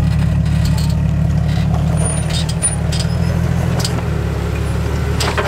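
Jeep Wrangler JK's engine running at a low, steady crawl as it creeps down a rocky trail, with scattered clicks and crunches of its tyres on the rock.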